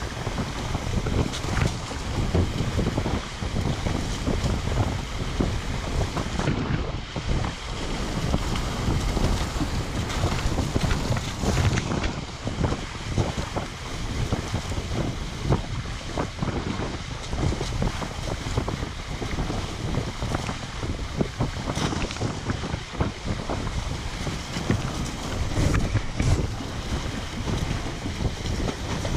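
Wind buffeting the microphone over water rushing and splashing along the hull of a Weta trimaran sailing at speed. The noise swells and dips unevenly, with irregular splashes of spray.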